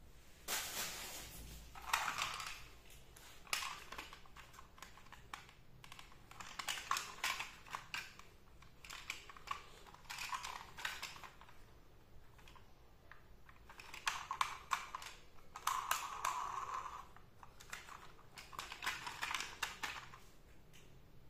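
Hands handling a plastic transformer toy car: irregular bursts of clicking and rattling plastic with some rubbing, coming in clusters and pausing in between.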